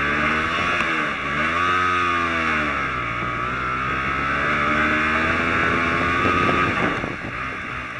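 A small 125cc bike engine revving under load up a steep slope, its pitch rising and falling several times as the throttle is worked. The sound turns ragged near the end, then drops away.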